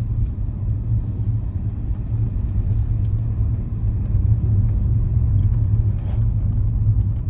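Steady, loud low rumble that cuts off abruptly right at the end.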